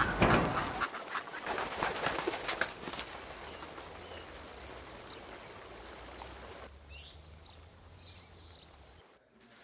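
Ducks quacking a few times over a steady outdoor hiss, after some knocks and rustling in the first seconds. The sound cuts off abruptly near the end.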